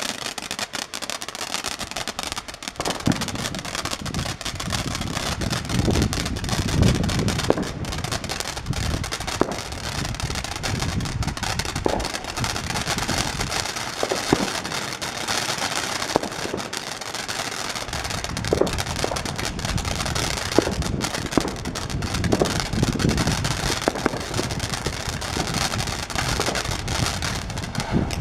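Consumer firework fountain spraying with a continuous hiss, peppered with sharp crackles and pops.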